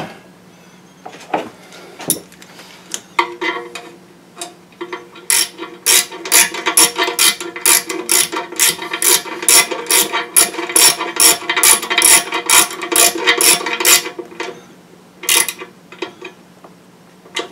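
Hand socket ratchet clicking as bolts are run down and snugged by hand, not torqued. A few scattered clicks come first, then a long run of quick, even clicks from about five seconds in to about fourteen, and one short burst near the end. A steady low hum runs underneath.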